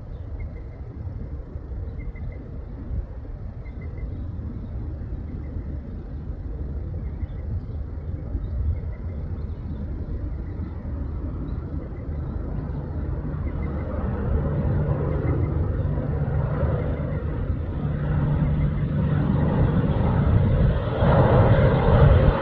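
Twin-engine turboprop aircraft climbing out after takeoff and coming toward the listener: a low rumbling drone that grows steadily louder, with a steady propeller hum joining about halfway through and the loudest part near the end.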